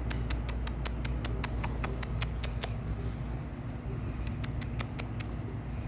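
A rapid, evenly spaced run of light clicks, about four or five a second, stopping after about two and a half seconds and starting again briefly near the end, over a steady low hum.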